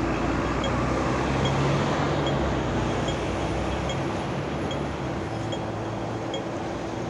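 Night city street traffic: a double-decker bus's engine hum is strongest for the first two seconds, then fades into steady traffic noise. A pedestrian crossing signal ticks slowly, just under once a second, through it all.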